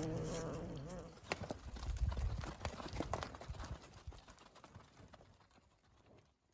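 Horse hooves clip-clopping, an irregular run of knocks that fades away over about four seconds.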